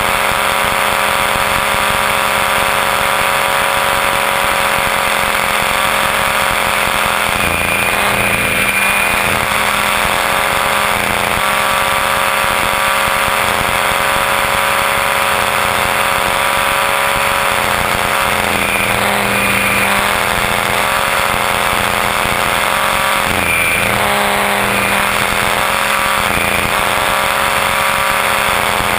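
Onboard sound of an Align T-Rex 500 electric RC helicopter in flight: the steady high whine of its brushless motor, gears and rotor. The pitch sags and recovers briefly several times as the rotor is loaded in 3D manoeuvres.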